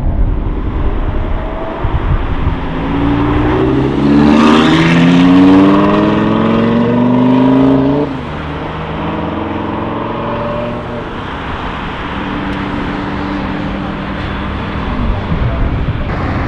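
Audi R8 Spyder accelerating hard past and away, its engine note climbing in steps through the gears and loudest about five seconds in. About eight seconds in the note drops suddenly, and the engine runs on lower and steadier as the car recedes.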